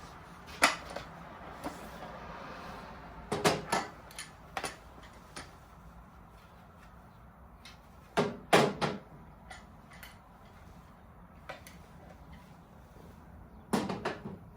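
Welder accessories and packaging being handled while unpacked from the box: scattered knocks and clatters in a few short clusters, with some rustling between them.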